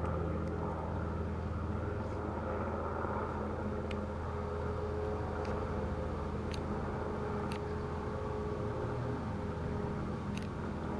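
Robinson R22 helicopter flying at a distance, a steady low drone from its piston engine and two-blade rotor. A few faint, short high ticks are heard over it.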